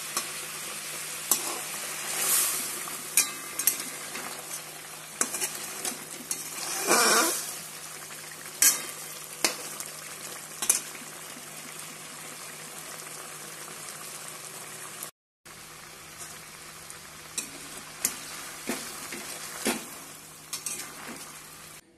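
Oil sizzling in a frying pan while a spatula stirs, with sharp clicks and scrapes of the spatula against the pan. The sound drops out for a moment about fifteen seconds in.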